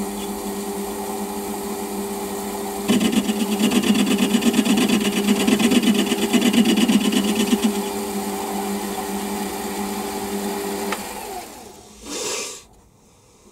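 Metal lathe running with a steady motor hum while a cutting tool, fed by hand, takes a light cut across a shoulder of a cast cylinder. The cut grows louder and rougher from about three seconds in until about eight seconds. About eleven seconds in the motor is switched off and the spindle winds down, falling in pitch, and a brief rustle follows near the end.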